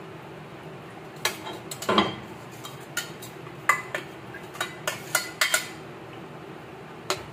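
Metal spoon knocking and scraping against stainless-steel cookware as the last of a pot is scraped out into a frying pan: a string of sharp clinks about a second in that run for some four seconds, with one more near the end.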